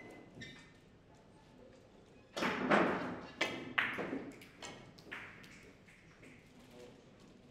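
Russian pyramid billiards break shot: about two and a half seconds in, the cue ball smashes into the racked pyramid with a loud clatter of ball on ball. Several more separate clacks follow over the next two seconds as the heavy balls knock into each other and the cushions, growing fainter.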